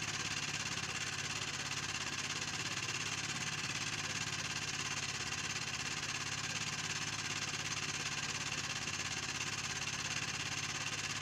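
A small engine running steadily at idle, with a rapid, even beat.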